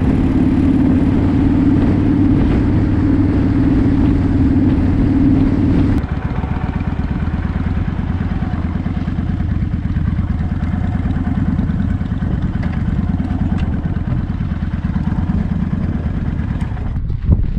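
Cruiser motorcycle engine running on the move with a steady drone. About six seconds in the sound changes abruptly to motorcycle engines idling with a fast, even pulse as the bikes sit stopped, with a few clicks near the end.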